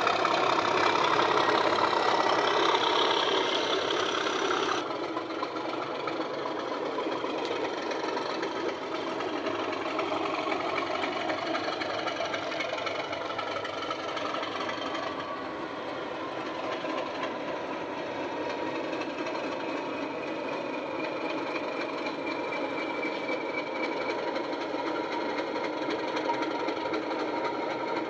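Model Class 37 diesel locomotives' DCC sound decoders playing a recorded English Electric diesel engine sound through small onboard speakers, running steadily. It drops in level about five seconds in and then holds steady.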